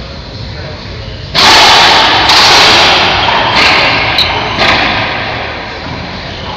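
Racquetball rally: the hard rubber ball is struck by racquets and hits the court walls. There are four sharp cracks, about a second apart, starting about a second and a half in, each ringing out in the enclosed court's echo.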